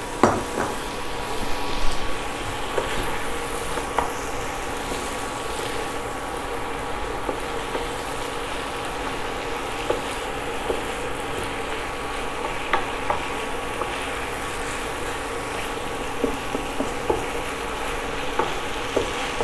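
Fish and tofu in rica-rica sauce sizzling steadily in a nonstick frying pan, with a wooden spatula stirring and knocking against the pan now and then.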